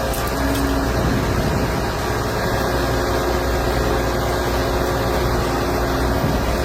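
Excavator's diesel engine running steadily under load while it works to pull a tree stump and its roots out of the ground.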